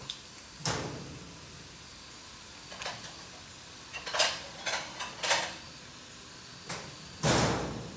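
Plastic jelly-cup packaging crinkling in short bursts as a young macaque picks at and tears the cups, about eight times, the longest and loudest near the end. A faint steady hiss runs underneath.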